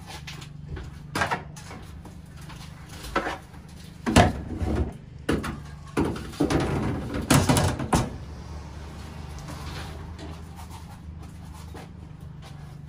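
Knocks, clunks and rustling of gear being handled: an ice auger lowered from garage rafters and set on a pickup bed, the busiest and loudest handling between about four and eight seconds in, over a steady low hum.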